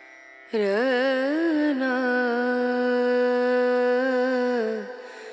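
Intro music: a single voice hums a long note, ornamented with wavering slides at first and then held steady, over a faint sustained drone. The note fades out shortly before the end.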